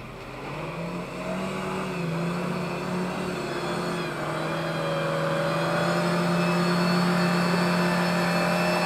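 Suzuki Vitara SUV's engine pulling in a low gear as it drives through a muddy, water-filled track, getting louder as it approaches, with water splashing from its wheels. The revs rise about a second in and then hold steady.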